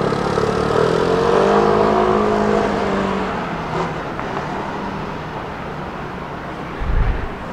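A motor vehicle passing by, its engine hum swelling to its loudest about a second and a half in and fading away over the next two seconds. A brief low thump near the end.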